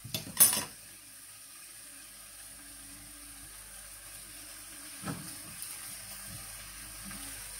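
Onions, carrots, peppers and potatoes sizzling softly as they fry in a pot. A metal strainer clatters against the pot at the start, and a spatula knocks once about five seconds in.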